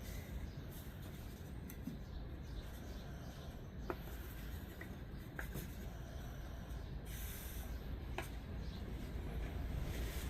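Faint scratching and rubbing, with a few light clicks scattered through it.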